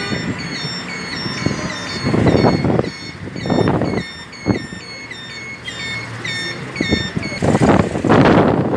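Gusts of wind buffeting the microphone in a dust storm, strongest about two seconds in, again about three and a half seconds in, and near the end. Under them, traffic and a steady series of short high chirping beeps, about two a second.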